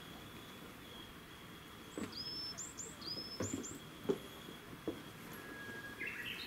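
A small bird chirping: a run of short, high calls a couple of seconds in. Soft knocks are scattered among the calls, the sharpest about four seconds in.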